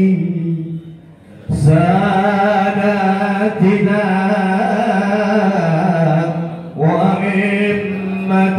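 A man singing shalawat, the Arabic devotional chant in praise of the Prophet, solo into a handheld microphone, in long, drawn-out, wavering notes. The singing breaks off for a moment about a second in and dips briefly near the end.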